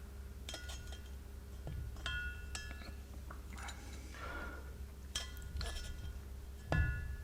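Steel valve stem seal pliers clinking against the valve stems and aluminium cylinder head of a Jaguar 4.2 V8 while the old seals are gripped and pulled: about six sharp, ringing metal clinks spread irregularly, over a steady low hum.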